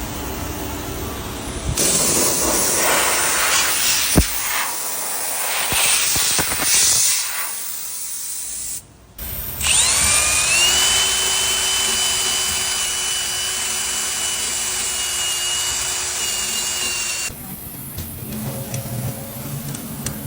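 Power tool at work on the rear brake hub: a rough grinding stretch with one sharp knock, then the motor spins up to a steady whine for about seven seconds and cuts off suddenly.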